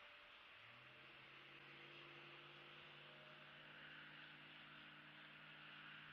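Near silence: a faint steady hiss, with a faint low hum of a few steady tones coming in about half a second in.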